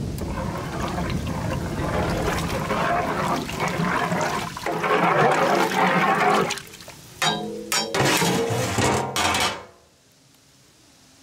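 Thick stingray curry gravy sloshing in a large metal cooking pot, with chopped stingray pieces in it. A few sharp knocks follow about seven to nine seconds in, then the sound drops to near silence for the last second or so.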